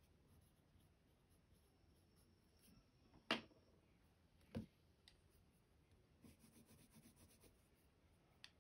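Faint scratching of a Prismacolor colored pencil on paper, with a run of quick back-and-forth strokes about six seconds in. Two sharp clicks about three and four and a half seconds in are the loudest sounds.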